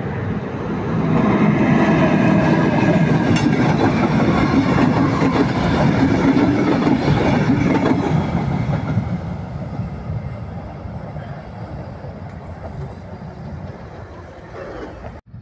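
ŽCG class 461 electric locomotive and its passenger coaches passing close by on the line. The sound swells as the train goes by and is loudest through the first half, then fades as it draws away.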